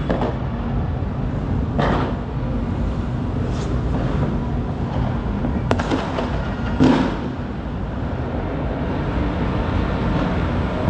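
Fireworks and firecrackers going off across a city: a continuous low rumble of distant bangs, with a few louder single bangs standing out, the loudest about seven seconds in.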